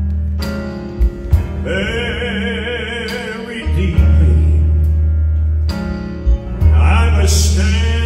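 Southern gospel song performed live: a male lead voice sings with vibrato over band accompaniment with deep held bass notes. The voice comes in about two seconds in and again near the end.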